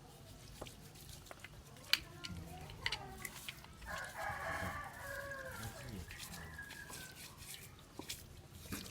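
A rooster crowing once, a long call starting about four seconds in and dropping in pitch at its end. Several sharp clicks and taps are scattered around it.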